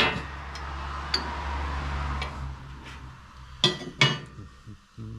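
Metal hand tools clinking and clanking on steel steering parts while a seized tie rod end is worked loose. There is a sharp clank at the start, a few light ticks, then two loud clanks about half a second apart near the end.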